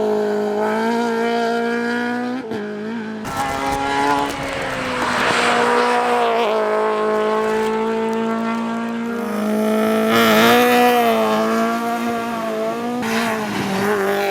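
Toyota GT86 CS-R3 rally car's FA20 flat-four engine running at high, nearly steady revs on a flat-out stage. There is a short dip and break in the engine note about three seconds in, followed by a spell of tyre and road noise.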